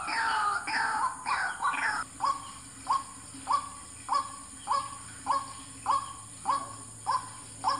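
White-breasted waterhen calling. For the first two seconds it gives a fast run of falling notes, then a steady series of short, hooked calls at about two a second.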